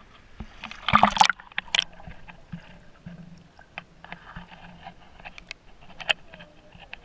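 A splash about a second in as the camera goes under the water, then muffled underwater gurgling with scattered sharp clicks.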